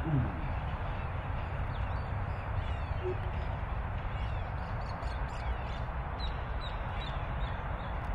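Steady wind noise on the microphone with a low rumble, a short low falling call right at the start, and a few faint high bird chirps, mostly in the second half.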